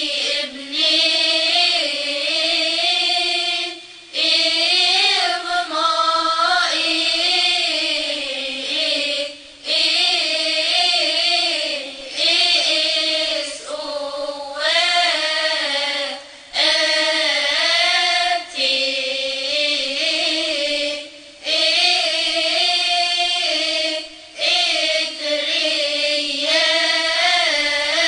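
A religious hymn sung in slow phrases of a few seconds each, with short breaks between the phrases.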